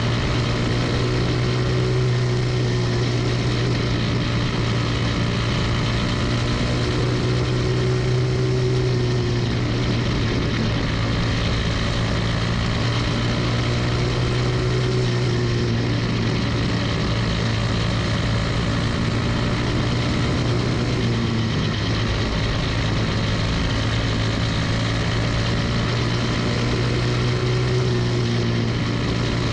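Single-cylinder Briggs & Stratton Animal kart engine running at racing speed, heard onboard the champ kart, its pitch rising and falling every several seconds as the driver accelerates and lifts around the oval.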